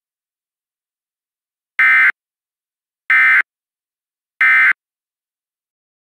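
Emergency Alert System end-of-message signal: three short, identical bursts of SAME digital data tones about 1.3 seconds apart, marking the end of the broadcast alert.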